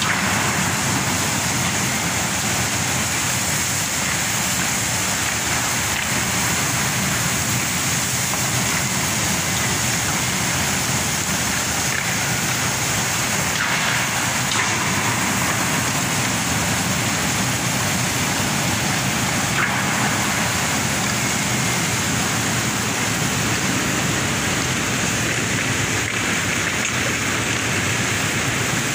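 Steady rushing noise of coal pouring from a shiploader's conveyor spout into a ship's steel cargo hold, with a low machinery hum beneath it.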